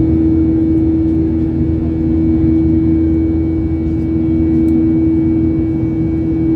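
Jet airliner's turbofan engines and airflow heard from inside the cabin during the climb after take-off: a steady loud rushing noise with a constant droning hum.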